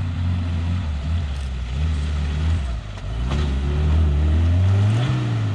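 Engine of a small off-road 4x4 revving up and down as it crawls through mud ruts. The pitch drops about three seconds in, then rises and gets louder towards the end.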